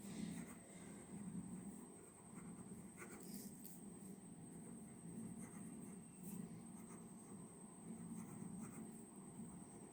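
Pen writing on paper, faint scratching strokes, over a steady high cricket trill and the low hum of a fan.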